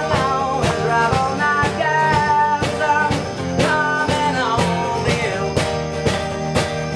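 Live band playing a rock song: strummed acoustic guitars and an electric guitar over a drum kit keeping a steady beat.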